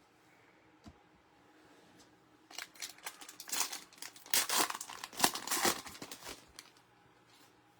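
Crinkling and rustling of plastic packaging as trading cards are handled, a run of crackly strokes starting about two and a half seconds in and lasting about four seconds.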